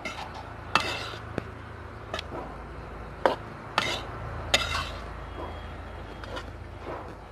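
Flat metal spatula stirring and scraping a dry roasted flaxseed-flour mixture in a steel kadhai, with a half-dozen irregular sharp clinks of the spatula against the pan over a low steady hum.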